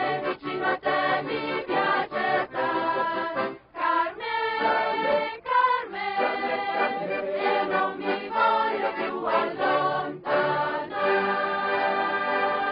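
A choir singing in short phrases broken by brief pauses, then holding one long chord near the end.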